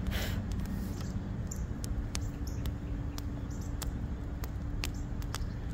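Wood fire crackling in a fire pit: sharp pops and clicks at irregular intervals, over a steady low rumble and a faint steady hum.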